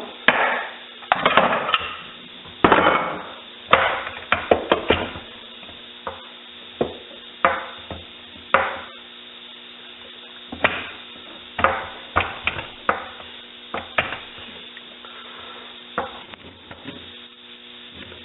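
Irregular knocks and clinks of hand tools and metal parts being handled during work on a 46RE automatic transmission, some in quick clusters, with a faint steady hum underneath.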